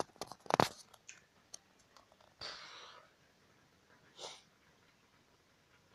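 Handling knocks on a handheld phone about half a second in, then two short breathy puffs close to the microphone.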